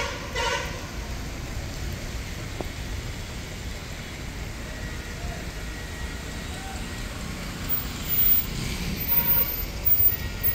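Steady outdoor street noise: traffic on a waterlogged road, with a short car horn toot right at the start and louder, uneven bursts of noise near the end.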